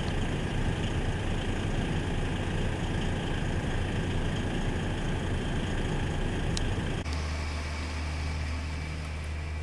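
DAF XF 105 truck's diesel engine idling steadily. About seven seconds in, the sound changes abruptly to a quieter, steadier low hum.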